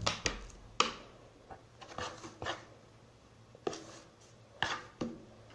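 A spoon knocking and scraping in a plastic mixing bowl while flour and water are stirred into homemade playdough: about seven short, sharp knocks at uneven intervals, some followed by a brief scrape.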